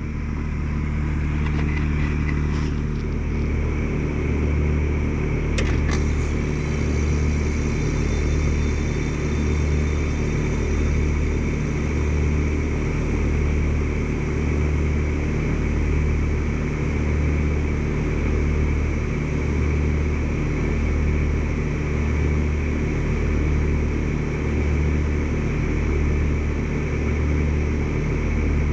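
Carrier heat pump outdoor unit running: a steady compressor hum and fan noise that grows louder over the first couple of seconds, then holds, with a slow throb about every second and a half.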